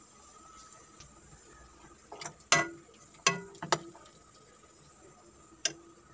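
Steel ladle clinking against the cooking pot as the soup is stirred and ladled: five sharp clinks with a short ring, four of them between about two and four seconds in and one near the end.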